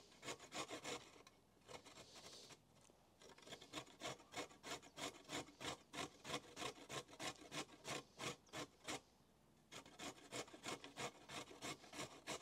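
Faint carrot grating on a metal box grater: a steady run of scraping strokes, about three a second, with a short pause about nine seconds in.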